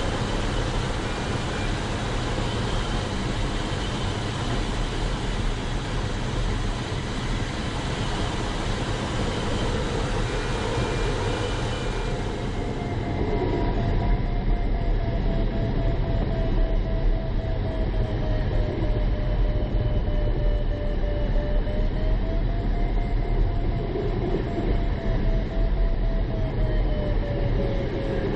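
Steady rush of airflow and low rumble inside the cockpit of an ASW 20B sailplane in gliding flight. From about halfway a thin electronic tone runs on, slowly rising and falling in pitch, typical of a variometer's audio signalling climb or sink.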